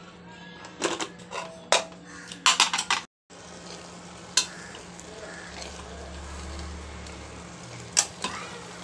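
Sharp metal clinks on an aluminium pressure cooker in the first few seconds, then a steel spoon stirring and scraping through cooked mutton and chana dal in the cooker over a steady sizzle, with an occasional clink of the spoon against the pot.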